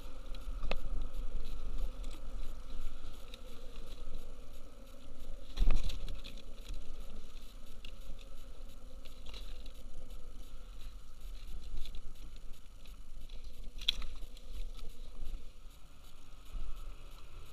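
Handling noise aboard a kayak on the water: scattered small clicks and knocks over a low steady rumble, with a sharper, louder knock about six seconds in and another near fourteen seconds.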